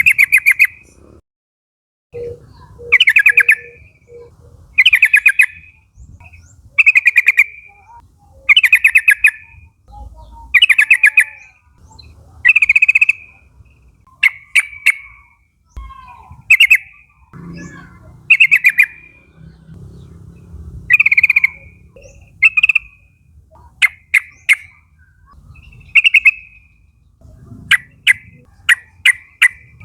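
Yellow-vented bulbul (trucukan) calling loudly: a short bubbly chattering phrase repeated about every two seconds, breaking into quicker, sharper single notes near the end.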